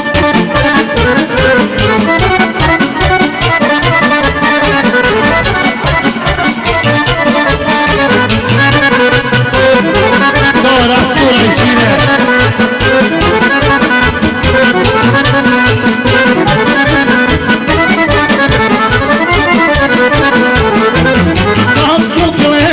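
Live Serbian folk band playing an instrumental kolo tune led by accordion over a steady, fast beat.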